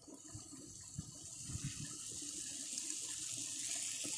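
Onions and ginger-garlic paste frying in hot coconut oil, a steady sizzle that grows gradually louder, with a few soft knocks in the first couple of seconds.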